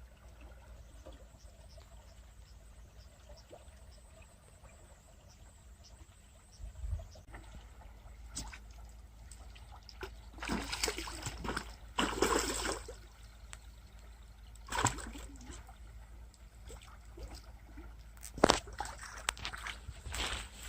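Water splashing and sloshing in a few irregular bouts, the loudest a sharp splash about three-quarters of the way in, over a low steady hum.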